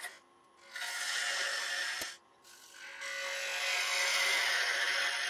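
Bowl gouge cutting the inside of a small ash bowl spinning on a lathe, making light finishing cuts. There are two long passes, with a short break before each where the tool comes off the wood, and a single click about two seconds in.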